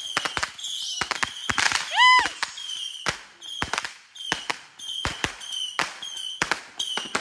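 Small fireworks popping and crackling: a rapid, irregular series of sharp pops, with short hissing bursts repeating about every half second in the second half. A brief pitched squeal comes about two seconds in.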